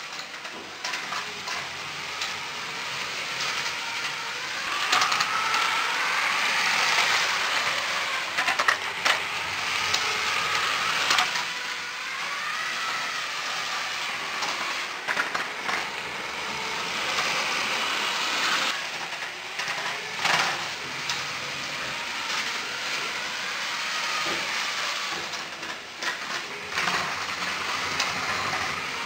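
Two Lego 9V trains (sets 4559 Cargo Railway and 4560 Railway Express) running on plastic track. Their electric motors whine, rising and falling in pitch, over a steady clatter of wheels on the rails, with sharp clicks now and then.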